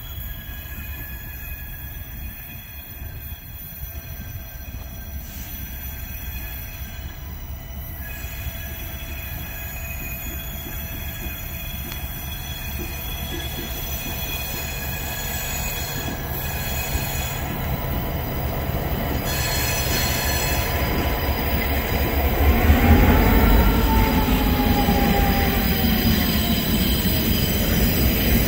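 Loram ballast train rounding a curve, its wheels squealing steadily at several high pitches as they grind through the curve, growing louder as it approaches. About two-thirds of the way in the train's rumble swells as it passes close, and one squeal swoops up and slides down in pitch while the ballast cars roll by.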